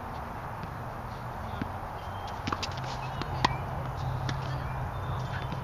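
Sharp pops of a tennis ball being struck by rackets and bouncing on a hard court, the loudest about three and a half seconds in, over a steady low hum.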